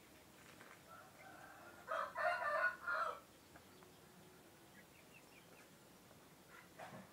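A rooster, a cockerel of a laying breed, crows once about two seconds in, a call just over a second long. A short, much fainter call follows near the end.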